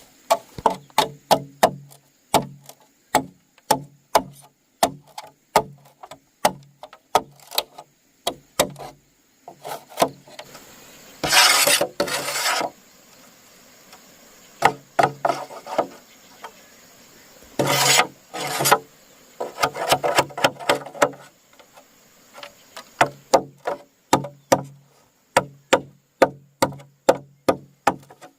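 Wood being struck again and again with a tool, about three blows a second, each with a short low ring. The blows break off twice for longer rasping scrapes on wood.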